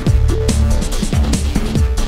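Electronic music with a steady beat and deep bass.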